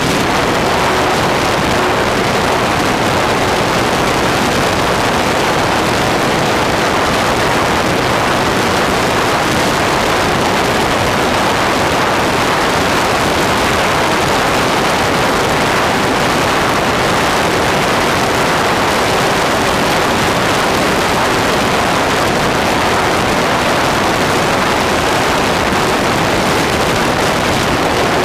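Loud steady rush of wind over a camera mounted in the cockpit of a Durafly T-28 radio-controlled model plane in flight. The faint steady hum of its electric motor and propeller comes through near the start and again in the last third.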